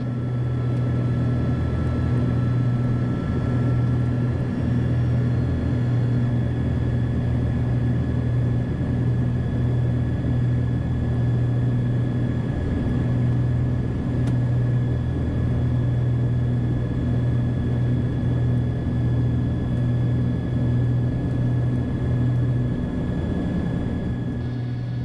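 Steady low drone of the Cessna 421C Golden Eagle's twin piston engines and propellers heard from inside the cockpit on final approach with full flaps.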